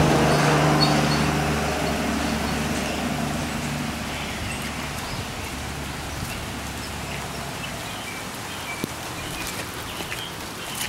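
A motor vehicle's engine hum fading away over the first few seconds, then steady rain and gusting wind outdoors with a few faint bird chirps.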